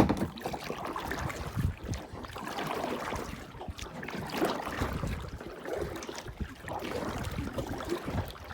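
Gusty wind buffeting the microphone, with water lapping against a kayak hull. A sharp click sounds right at the start.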